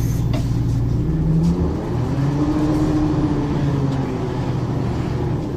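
Diesel engine of an Ikarus 435 articulated city bus pulling under load. Its note climbs, drops suddenly about a second and a half in, as the ZF automatic gearbox changes up, then swells and falls back again.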